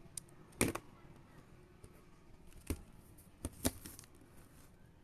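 A few sharp plastic clicks from a puzzle cube being handled: one loud click, then a single click and a quick pair a few seconds later.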